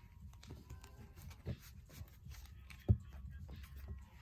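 Quiet handling of tarot cards: faint scattered taps, with a soft thump about a second and a half in and a sharper one near three seconds in.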